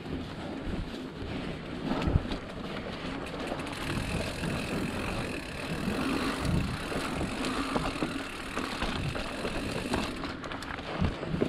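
Mountain bike being ridden along a dirt trail: tyres rolling, with irregular knocks and rattles from bumps along the way.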